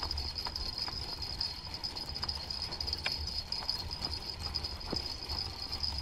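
Spinning reel on a bottom-fishing rod being wound in by hand, with scattered faint clicks, over a steady high-pitched whine and wind rumble on the microphone.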